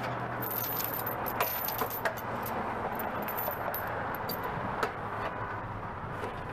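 Steel tie-down chain clinking and rattling in irregular sharp clicks as it is handled and run under a vehicle's frame, over a steady low hum.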